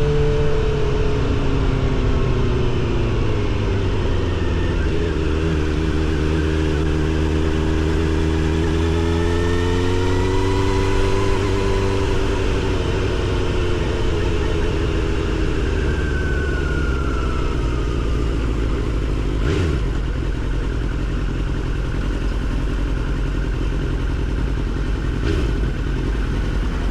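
Suzuki GSX-R750 SRAD inline-four with a Yoshimura R77 exhaust, ridden: the exhaust note rises and falls with the throttle for the first dozen seconds, then settles into a steadier cruise with a continuous low rumble.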